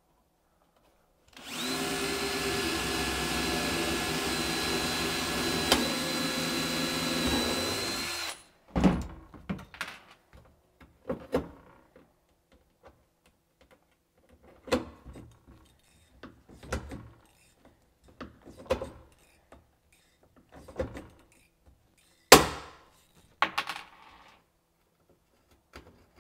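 Cordless drill running steadily for about seven seconds as it bores through the carbon platform into the kayak's plastic hull. After that come irregular clicks and knocks from a hand rivet gun being worked on a 5 mm rivet, with one sharp, loud snap about three-quarters of the way through as the rivet sets.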